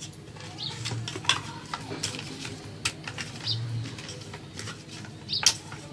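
Scattered clinks and taps of utensils against dishes, the loudest near the end, while fish is handled and seasoned for marinating.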